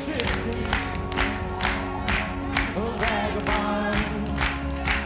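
Upbeat gospel worship song playing, with sustained keyboard chords under a sharp beat about twice a second and a short sung phrase near the middle.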